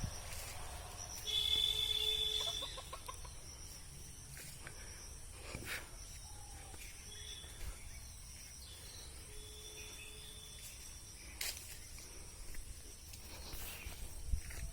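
Chicken calling outdoors: one loud drawn-out call about a second in, then a couple of fainter calls later, over a steady low background rumble with a few sharp clicks.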